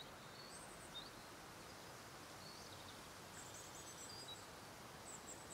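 Faint outdoor ambience: a steady low hiss with scattered short, high bird chirps and twitters.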